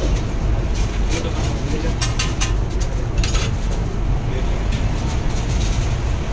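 Steady low rumble of a busy street-food stall, with a metal spatula clinking and scraping on a large flat iron griddle a few times, the sharpest clinks about two to three and a half seconds in.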